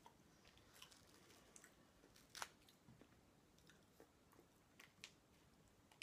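Faint eating sounds: a crusty bread roll torn by hand and chewed, heard as scattered small clicks and crackles, the sharpest about two and a half seconds in.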